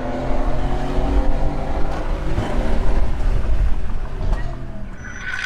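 Mercedes-AMG car engine running on the track, with a heavy low rumble and an engine note that slowly shifts in pitch during the first couple of seconds. A higher, brighter sound joins about five seconds in.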